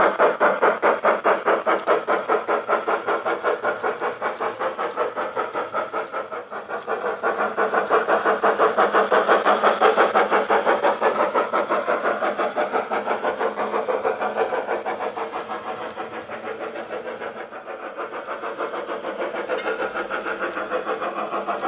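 Steam-locomotive chuffing from a model locomotive's DCC sound decoder, played through a small speaker in the tender: even exhaust beats at about four a second. It is loudest as the locomotive passes, fades, then grows louder again near the end.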